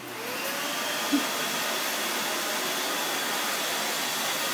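Vacuum cleaner switching on, its motor spinning up over about half a second and then running steadily, being used to vacuum a dog's coat. A brief sharp sound stands out about a second in.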